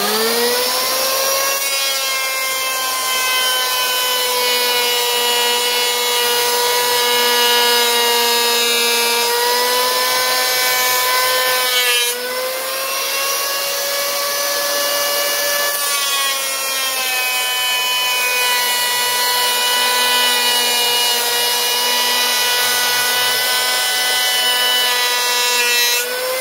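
Makita 1900B 3-inch electric hand power planer spinning up and running with a steady high whine as it planes passes across a rough-sawn wooden block. The sound breaks and shifts in pitch about twelve seconds in, and the motor starts winding down right at the end.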